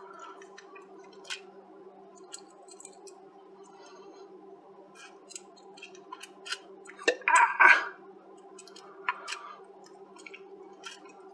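Small clicks and taps of a thin metal tool and fingers handling a fine wire strand inside an opened radio, over a steady low hum. A louder rustling burst comes about seven seconds in.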